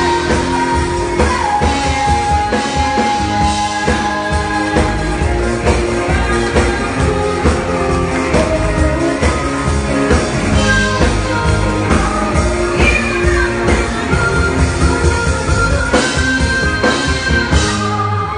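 Live pop-rock band playing loudly, with drum kit and electric guitar, and a woman singing long held notes over them.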